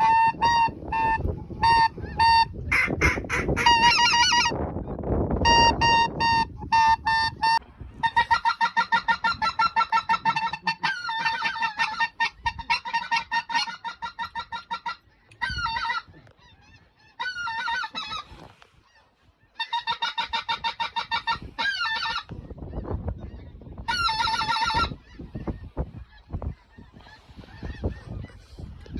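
Waterfowl calling in quick runs of loud, honking quacks, each run a rapid even string of notes with a few shorter bursts between pauses. A low rumble sits under the first part.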